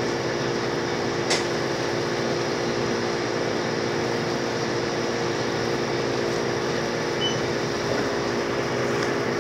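Steady hum of a convenience store's cooling machinery (air conditioning and refrigerated cases), with a single sharp click about a second in.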